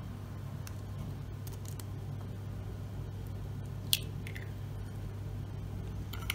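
An egg cracked open over a small stainless steel pot: one sharp crack about four seconds in, then a fainter crackle as the shell is pulled apart. A steady low hum sits underneath.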